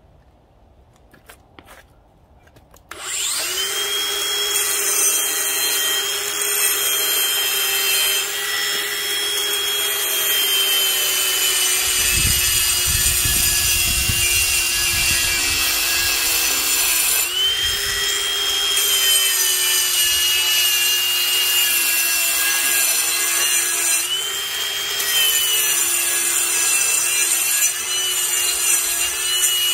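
Ryobi P423 cordless brushless angle grinder with a 4.5-inch diamond blade starting up about three seconds in, then grinding down the raised edge of a wet concrete slab. Its high whine dips as the blade is pressed into the concrete and briefly climbs back up twice as it eases off, with a heavy low grinding rumble for several seconds in the middle.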